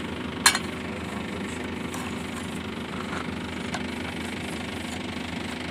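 Engine idling steadily, with one sharp metallic click about half a second in and a few faint ticks after.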